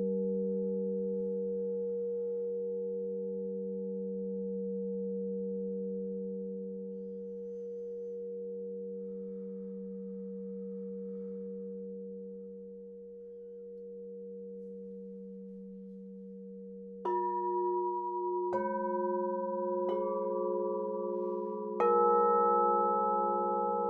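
Singing bowls ringing: one long sustained tone slowly fading, then, in the last seven seconds, four fresh strikes about a second and a half apart, each adding its own ringing note over the ones still sounding.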